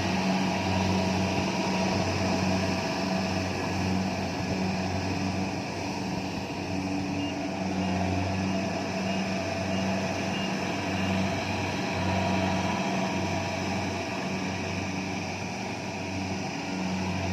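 Kubota rice combine harvester's diesel engine and threshing machinery running steadily while harvesting, a low hum that wavers regularly over a broad machine noise.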